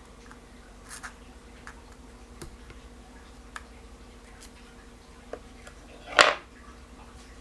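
Small parts of a spinning reel's drag being handled: scattered light clicks and taps as the drag washers are worked out, with one louder short knock about six seconds in.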